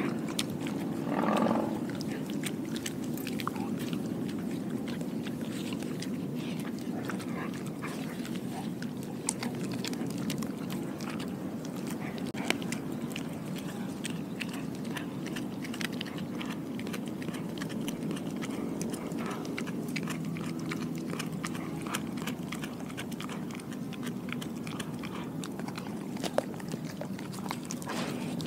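A dog chewing and gnawing on raw pork skin held close to the microphone: wet mouth sounds with many small, irregular clicks of teeth.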